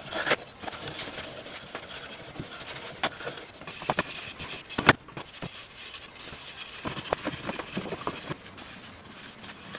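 0000 steel wool scrubbing a cast aluminum table-stand base, a steady scratchy rubbing with occasional sharp knocks.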